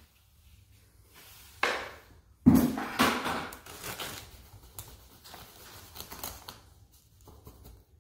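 Plastic rustling and scraping from hands working around a mortar-filled plastic container. There is a short rustle, then a knock about two and a half seconds in followed by a second or so of rough scraping, then scattered light clicks.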